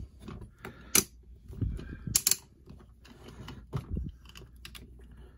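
Hard plastic parts of a robot action figure clicking and clacking as an arm is lined up by its clips and snapped onto the body, with handling rustle between; the sharpest clicks come about a second in and just past two seconds in.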